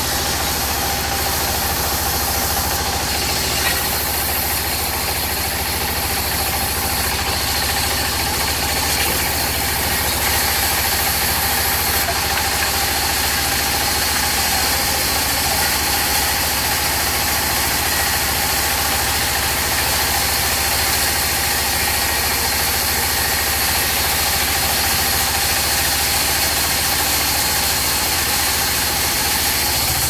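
Engine-driven sawmill circular saw bench running steadily as a plank is fed through the blade: a constant, even mechanical drone.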